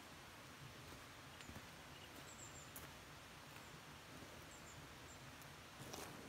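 Near silence: faint forest ambience with a few short, faint high chirps of small birds, and a few faint clicks near the end.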